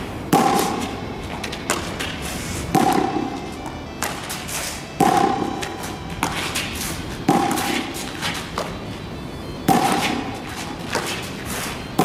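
A hollow rubber practice baseball is thrown against a concrete wall and fielded off the ground with a flat board glove. There are five loud hollow knocks, each with a brief ring, about every two and a half seconds, and each is followed about a second later by a lighter knock.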